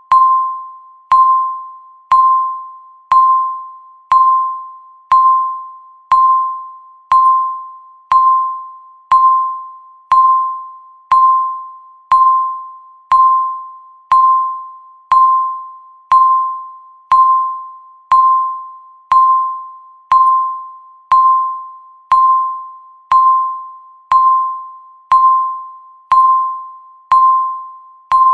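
Countdown timer's electronic ticking: one tick a second, each a sharp click with a short ringing ping that fades quickly.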